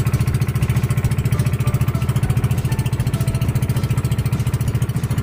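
Engine of a motorized outrigger boat (bangka) running steadily under way, a loud fast even pulse.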